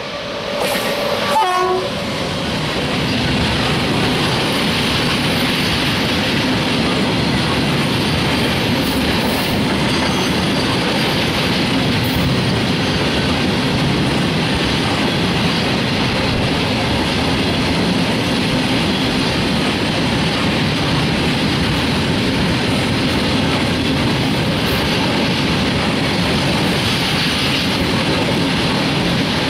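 A train horn sounds briefly near the start, its pitch falling, then a long freight train of flat wagons rolls past steadily, its wheels running over the rails.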